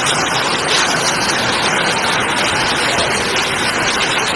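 Heavy rain mixed with hail pouring onto paved ground: a dense, steady hiss.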